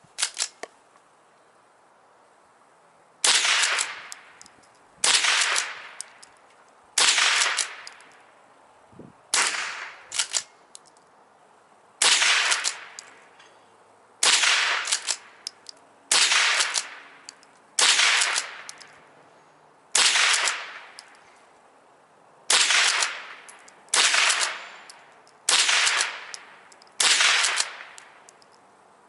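Henry pump-action .22 LR rifle firing at a steady pace: about thirteen sharp shots, roughly one every two seconds, each trailing off in a short echo. A few light clicks come just before the first shot.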